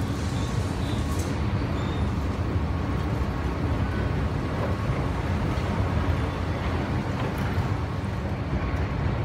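Steady low rumble and hiss of subway station ambience, with a faint steady tone or two above it.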